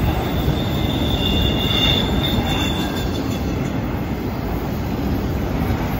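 Freight train's autorack cars rolling past with a steady rumble of steel wheels on rail. A high, thin wheel squeal from the curve sounds over the first half and fades out about three seconds in.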